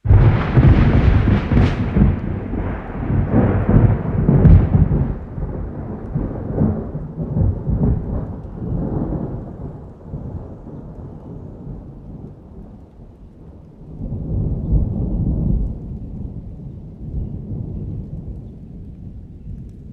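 Thunder: a sudden loud clap with two sharp cracks in the first few seconds, rolling into a long low rumble that dies away, then a second, softer roll of rumbling about fourteen seconds in that fades out.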